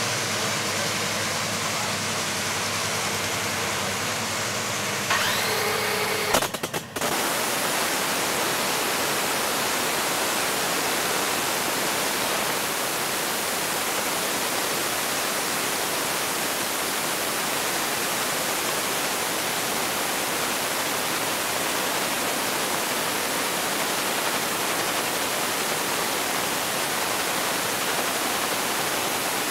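Top fuel dragster's supercharged nitromethane-burning Hemi V8 starting up. A rising whine about five seconds in is followed by a few sharp cracks as the engine fires. It then runs at a warmup idle, so loud that the recording overloads into a steady, even wall of noise.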